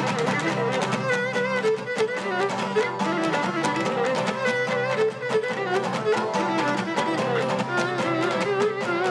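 Cretan folk dance music: a Cretan lyra bowing an ornamented melody over a Cretan laouto strumming a steady beat.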